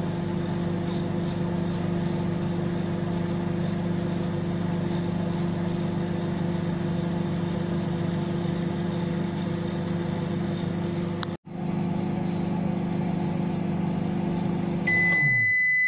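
Microwave oven running on high with a frozen cheeseburger inside: a steady electrical hum with the rumble of the turntable. Near the end the hum stops and a long, high-pitched beep sounds, signalling that the heating cycle is done.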